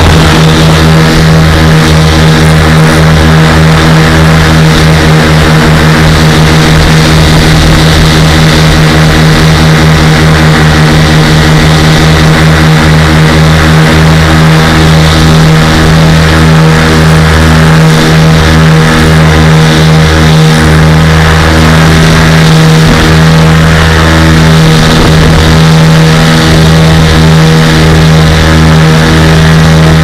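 Lazair ultralight's twin two-stroke engines running steadily in level flight, a loud even drone, with wind buffeting the microphone in the open cockpit as an uneven low rumble.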